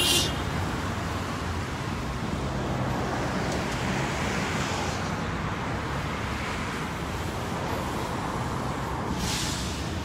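Street traffic noise: a steady roadway rumble with cars passing, one swelling past about four seconds in, and a brief hiss near the end.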